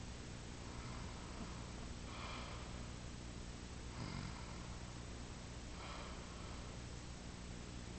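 A sleeping boy snoring softly: faint, raspy breaths about every two seconds, four in all.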